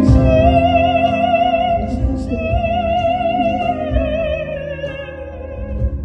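A woman singing in operatic style: two long high held notes with a wide vibrato, then a phrase stepping downward near the end, over a sustained instrumental accompaniment.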